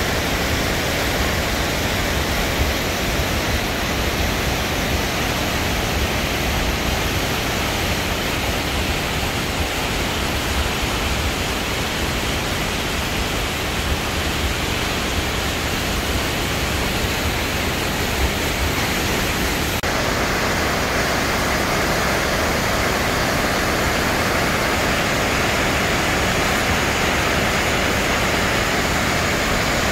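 Wallace Falls' water plunging and crashing, a steady, even rush of falling water. Its tone brightens a little about two-thirds of the way in.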